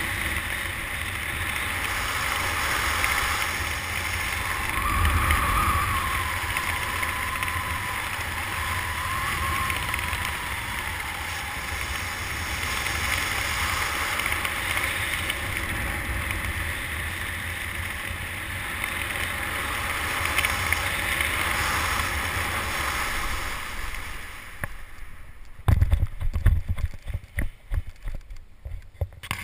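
Steady wind rushing over the microphone during a parachute descent under an open canopy. Near the end the wind dies away and a few sharp thumps and rustles follow as the tandem pair touches down and the canopy collapses.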